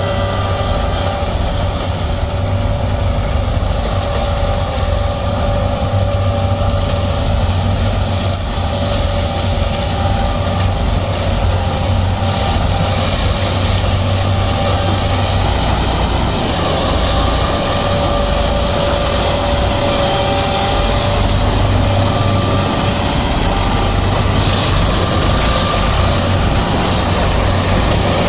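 Sugarcane harvester and its accompanying tractor running steadily while working, giving a continuous low engine hum with steady higher machine whines that come and go.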